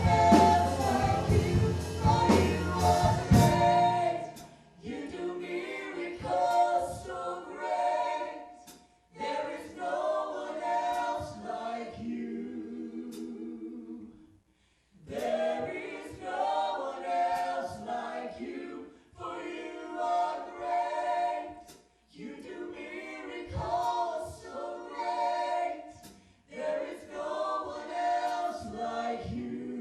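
Gospel worship music: the band with drums and bass stops about three seconds in, and a group of voices carries on singing a worship song unaccompanied, in phrases with short pauses between them.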